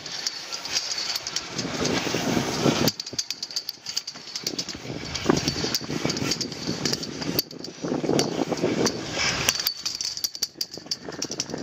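Skis scraping and hissing over packed snow through a series of turns, swelling and easing with each turn and dropping off briefly about three seconds in, with many small clicks and rattles throughout.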